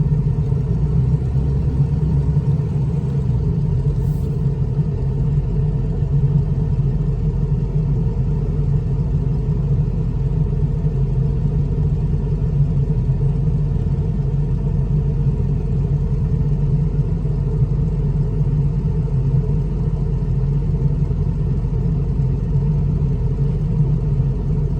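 Steady low rumble of a vehicle engine running at an even pace, with no revving.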